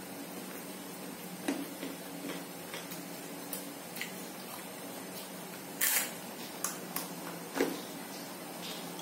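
Eating sounds of a person eating fried chicken with his fingers: scattered smacks and clicks of lips and chewing, with a louder noisy burst about six seconds in. A steady low hum runs underneath.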